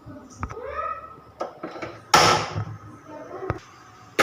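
Kitchen handling noises as pots and utensils are moved about: scattered knocks and clicks, and one sudden loud burst of noise about two seconds in that fades away within half a second.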